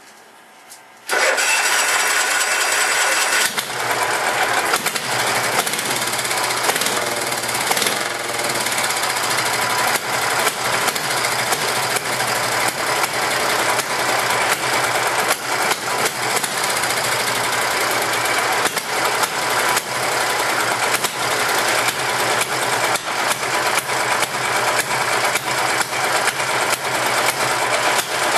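Cub Cadet garden pulling tractor's engine cold-starting: it catches suddenly about a second in and then runs loud and steady, with irregular sharp pops from the exhaust.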